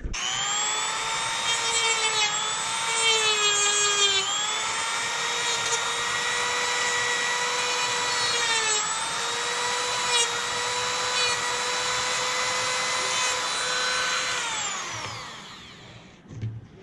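Dremel rotary tool with a grinding wheel grinding down a small guide tab on a turn signal bulb. The motor runs at a steady high whine whose pitch dips briefly when the wheel is pressed into the work, then spins down with a falling pitch and stops near the end.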